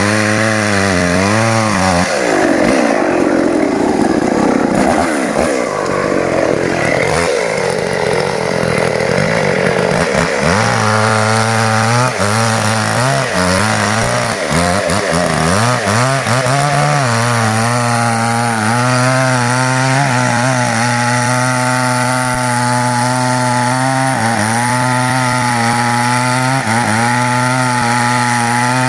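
Small petrol chainsaw revving high under load as it cuts into a tree trunk for about nine seconds. It then drops back to idle, with a few short blips of the throttle, and idles steadily to the end.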